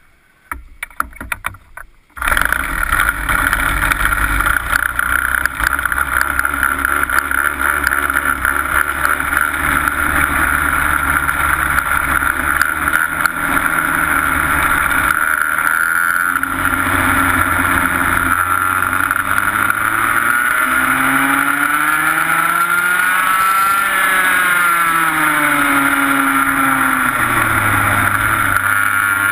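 A 125cc two-stroke TaG kart engine, heard up close from on board, catches about two seconds in after a few short uneven bursts. It runs steadily at first, then from about halfway its pitch rises and falls again and again as it accelerates and backs off through corners.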